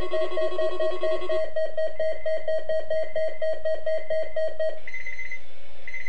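Weather radio sounding its alert for the weekly test: a rapid electronic beeping, several beeps a second, which stops about five seconds in. It is followed by two short higher-pitched tones.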